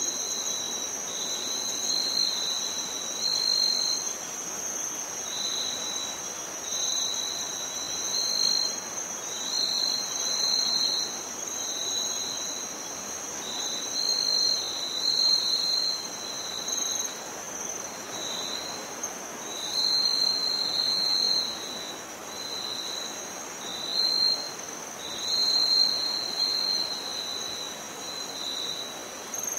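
Insects, crickets, trilling: one steady high trill runs on unbroken while a second, lower trill starts and stops every second or two.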